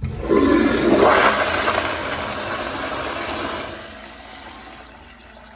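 A commercial American Standard restroom fixture flushing: a sudden loud rush of water that is strongest about a second in, eases off after about four seconds and fades away near the end.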